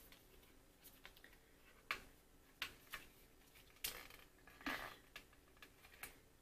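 Faint, scattered clicks and scrapes of a loose-setting-powder package being worked open by hand, a sharp click every second or so.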